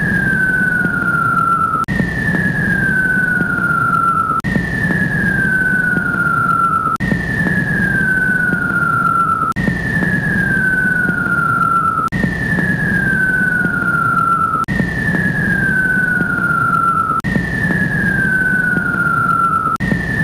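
Looped jetliner engine sound effect: a steady low roar under a high whine that falls in pitch, cut off and restarted about every two and a half seconds.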